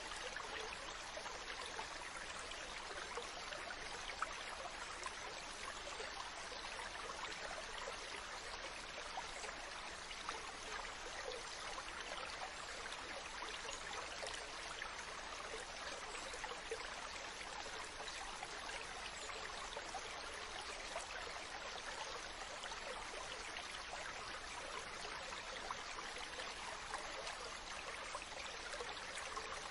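Water running steadily: an even, continuous rush of flowing water with faint small splashes scattered through it.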